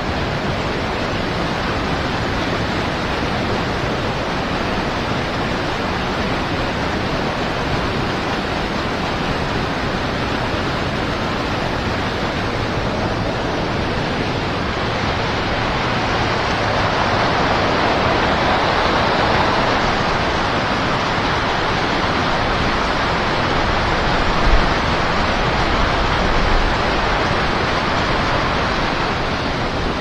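River rapids rushing steadily, growing a little louder a bit past halfway through.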